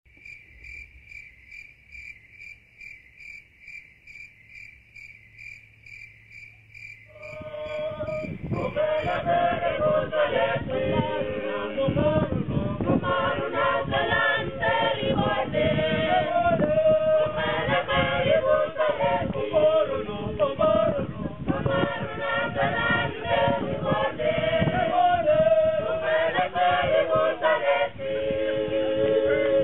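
A faint insect chirping evenly, about three chirps a second, then from about seven seconds in a group of men and women singing together unaccompanied, in harmony.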